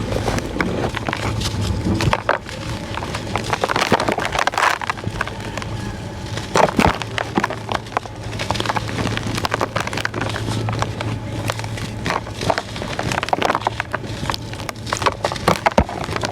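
Gritty sand, likely concrete sand, being crushed with dense, irregular crunching and crackling. A steady low hum runs underneath.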